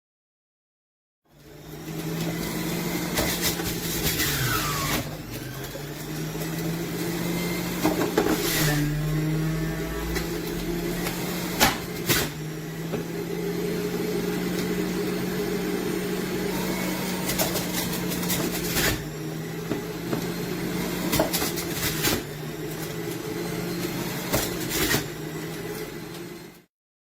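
Severin slow juicer's electric motor running with a steady hum, its pitch dipping briefly a couple of times as it takes load, with several sharp cracks as produce is crushed in the auger.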